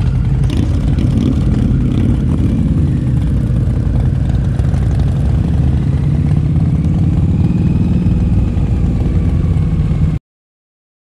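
Motorcycle engine running steadily, then cutting off suddenly about ten seconds in.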